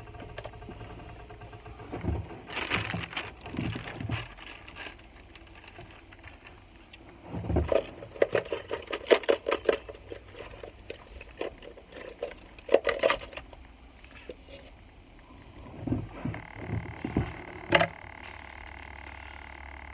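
Plastic zip-top food bags being handled, crinkling and rustling in irregular bursts.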